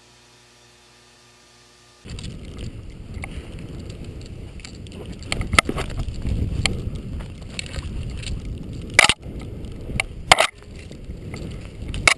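A faint electrical hum, then about two seconds in a rushing, rumbling noise of skiing fast downhill through snow: skis sliding over the snow and wind buffeting the camera's microphone. Several sharp knocks and clicks break through it, the loudest near the end.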